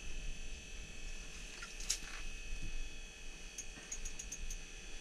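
Steady electrical hum with a few faint, sharp ticks while slush is scooped by hand out of an ice-fishing hole.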